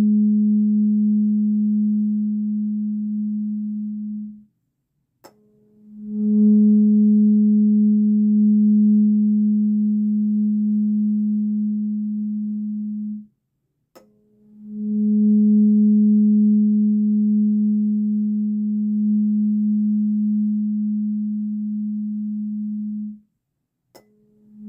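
Sacral chakra tuning fork tuned to 210.42 Hz, ringing a steady low pure tone with a faint octave overtone and fading slowly. The tone stops short three times, each time followed a moment later by a sharp click and the tone swelling back in as the fork sounds again.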